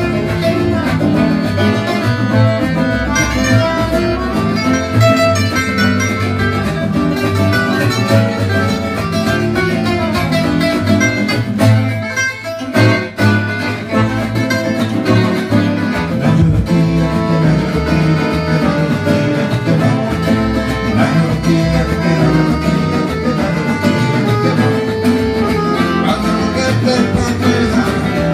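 Gypsy jazz band playing an instrumental: Selmer-style acoustic guitar lead over rhythm guitars, accordion and upright double bass. The music briefly drops out about halfway through, then picks up again.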